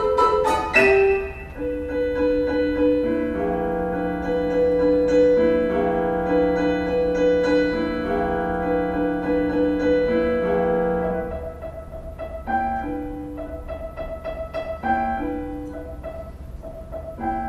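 Prepared piano, its tone altered by objects placed between the strings, playing slow held chords. A little past halfway the chords give way to quieter, sparser single notes.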